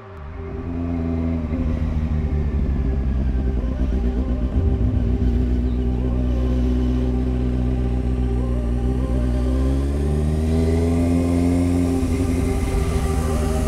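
A motor vehicle's engine running steadily under way, its pitch rising about ten seconds in and easing back near the end.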